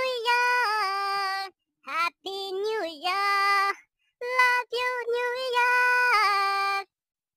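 A high-pitched voice singing a tune unaccompanied, in several phrases of held and sliding notes with short breaks between them. The singing stops shortly before the end.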